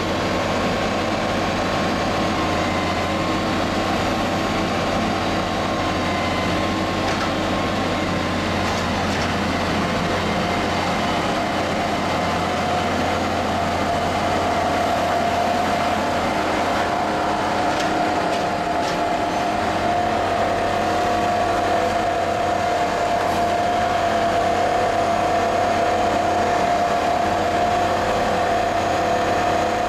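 Plasser & Theurer multiple tie tamper working on the track: a steady machine drone with a held whine that grows a little stronger about halfway through, and a few faint clicks.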